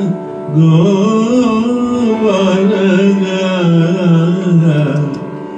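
A man singing a long, wavering melodic phrase of a devotional bhajan over a steady drone. The phrase starts about half a second in and fades just before the end.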